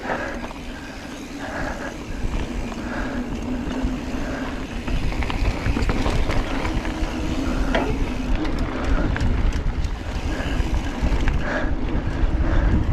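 Mountain bike rolling fast along a dirt singletrack: wind rushing on the microphone over the rumble of knobby tyres on dirt, with scattered light clicks and rattles from the bike. It gets louder from about two seconds in as the bike picks up speed.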